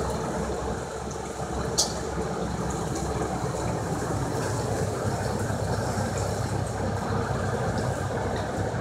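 A fire engine's engine running at a steady idle, a low continuous rumble, with one short sharp click about two seconds in.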